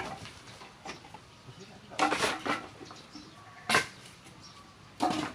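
Wooden boards knocking and clattering as they are thrown down and stacked by hand while a load of timber is unloaded: a sharp knock at the start, a cluster of knocks about two seconds in, another near four seconds and more near the end.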